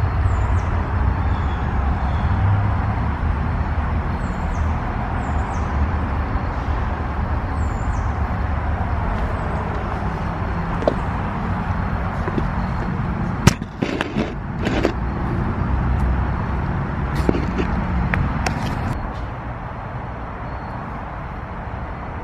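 Steady low outdoor background rumble with a few faint high chirps, broken by a handful of sharp knocks about two-thirds of the way through.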